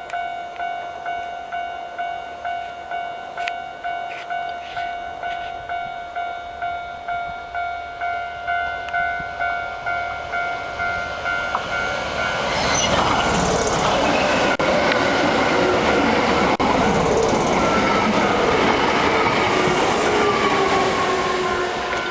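Japanese level-crossing warning bell ringing in regular strokes, about one and a half a second. About twelve seconds in, a Hankyu Imazu Line electric train runs over the crossing and its running noise, with a falling whine, drowns the bell until it eases near the end.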